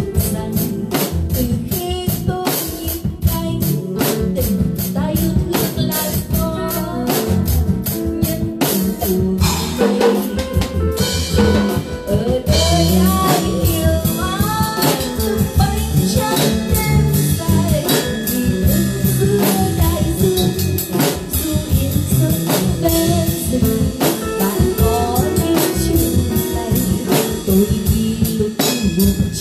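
Yamaha drum kit with cymbals played in steady time along with a recorded song; guitar and a singing voice carry the melody over the drums, the melody line growing clearer about halfway through.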